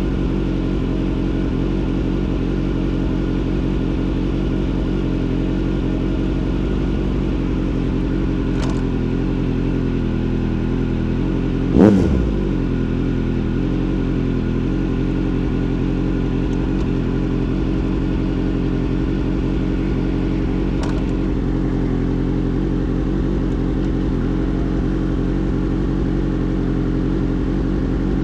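Motorcycle engine idling steadily at an even pitch, with one quick blip of the throttle about twelve seconds in.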